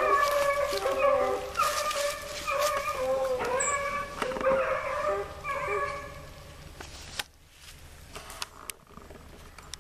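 A pack of hounds baying in overlapping, repeated cries as they run a rabbit. The baying stops about seven seconds in, leaving a few faint clicks.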